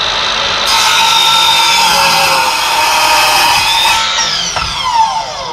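Sliding compound miter saw running with a steady high whine. From about a second in, its blade cuts through a wooden board for about three seconds. Then the cut ends and the blade spins down with a falling whine.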